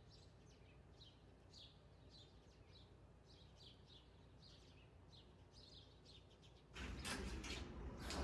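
Faint bird chirps: short, repeated, downward-sliding calls, about two a second, over quiet room tone. Near the end a much louder rush of running water starts.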